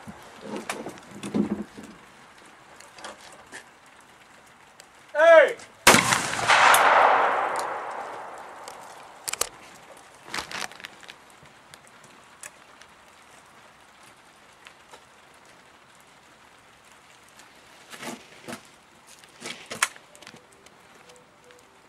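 A short shouted call for the target, then about half a second later a single shotgun shot at a clay target, loud and with a long echoing tail. A few faint clicks and knocks follow later.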